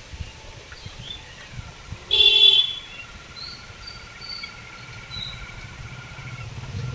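A vehicle horn honks once, loud and brief, about two seconds in. A low engine rumble grows louder near the end.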